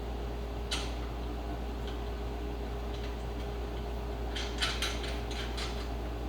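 Light metallic clicks and clinks of bolts and hand tools being handled: one click about a second in, then a quick run of five or six near the end. Under them runs the steady hum of a window air conditioner.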